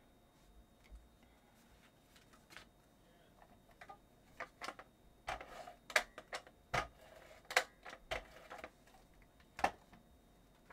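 Tape runner adhesive applicator pulled across the back of a photo in several short strokes, each a brief clicking, scratchy zip. The strokes come mostly in the second half.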